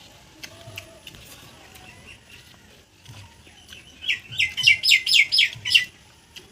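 A bird calling outdoors: a quick run of about nine sharp, falling high notes lasting about two seconds, beginning about four seconds in.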